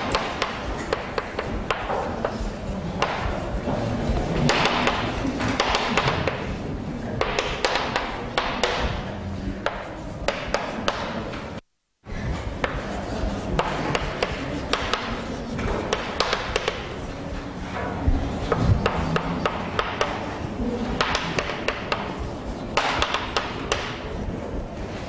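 Chalk writing on a blackboard: rapid taps and scratchy strokes as letters are written. The sound cuts out briefly about halfway through.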